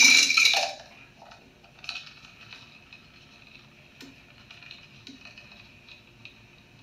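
Dry dog kibble rattling as a plastic cup scoops it from a plastic storage bin: a loud rush of pellets in the first second, then faint scattered clicks and rustles of the kibble.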